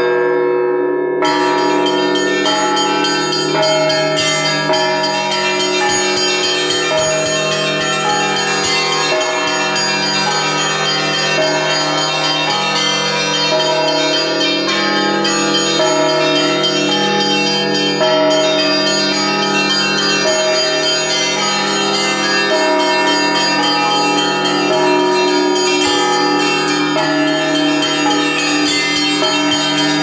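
Orthodox church bells ringing loudly and continuously, heard close up in the belfry. Several bronze bells of different pitches are struck one after another in a dense peal, and their tones ring on and overlap.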